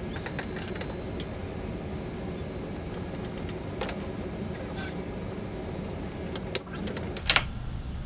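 Hand wrench turning the draw stud of a knockout punch to cut a hole in an aluminium plate: small metal clicks, then a few sharp clicks and snaps near the end, over a steady low hum.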